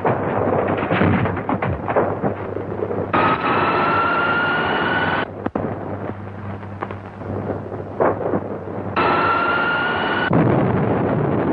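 Old film-serial science-fiction sound effects: dense electrical crackling and pops, with a whine that rises slowly in pitch for about two seconds, heard twice, from the underground kingdom's ray machinery.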